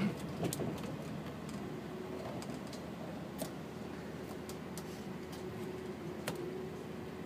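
Inside an airport apron bus on the move: a steady low running noise, with scattered light clicks and rattles and a faint steady hum that comes in about two seconds in.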